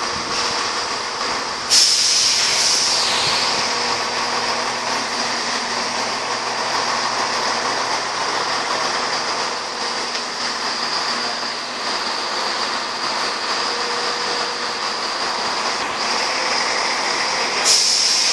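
ScotRail Class 170 Turbostar diesel multiple unit moving slowly along the platform: steady diesel and wheel noise with a high whine. There are two sudden hisses of released air, one about two seconds in and one near the end.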